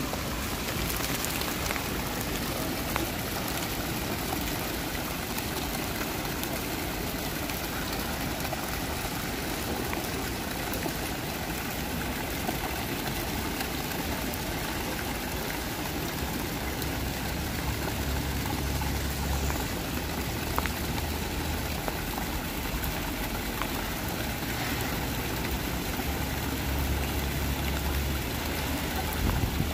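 Water from fountain jets splashing into a stone basin, mixed with falling rain: a steady, even hiss of water. A low rumble swells up twice in the second half.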